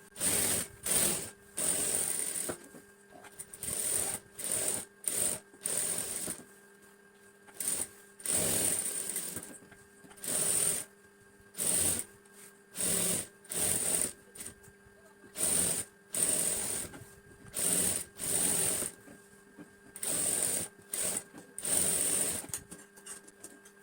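Sewing machine stitching the lining cloth to the main blouse fabric in many short runs, starting and stopping every second or so.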